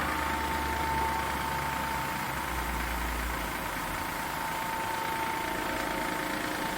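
RHONG RG 26E plastic granulator running steadily: an even motor hum with a constant high whine. A low rumble underneath deepens about halfway through, then fades.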